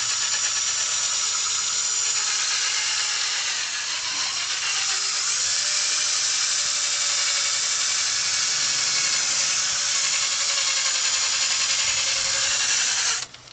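Power drill running with a pad spinning against a plastic headlight lens, a steady high whine that wavers a little in pitch. It cuts off suddenly near the end.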